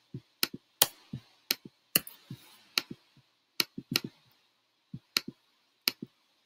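A dozen or more single sharp computer pointer clicks at an irregular pace, with a short pause about four seconds in, as items are selected and deleted on a screen whiteboard.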